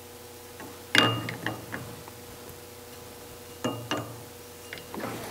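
Outside micrometer clinking against the steel journals of a Porsche 911E crankshaft as it is slid over and off them to check journal size by feel. There are a few sharp metallic clicks: the loudest about a second in, two close together near four seconds, and another near the end, over a faint steady hum.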